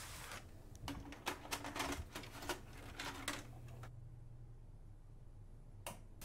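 A quick, irregular run of sharp clicks and clacks lasting about three seconds, followed by a low steady hum and a single click near the end.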